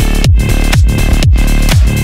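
Electronic dance music with a steady kick drum about twice a second.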